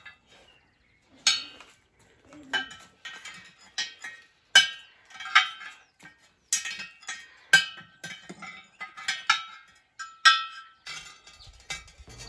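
Light clinking of small hard objects: about a dozen irregular knocks, each with a brief ringing tone.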